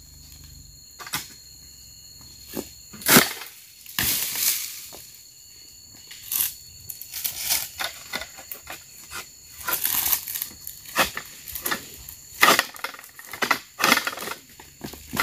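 Oil palm fronds and dry frond litter cracking, snapping and rustling as fronds are cut with a long-pole harvesting sickle and trodden underfoot. A series of sharp cracks, the loudest about three seconds in, with a longer tearing rustle just after and many smaller snaps through the rest.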